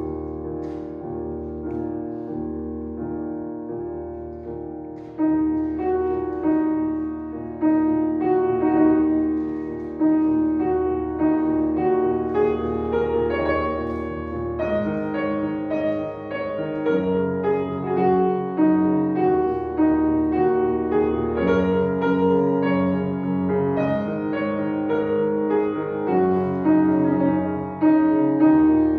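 Solo piano playing a piece inspired by classical Thai instruments: repeated middle-register notes over a sustained low bass, entering suddenly and growing louder about five seconds in.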